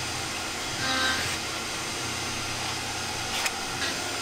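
Steady background machine hum, with a single sharp click about three and a half seconds in.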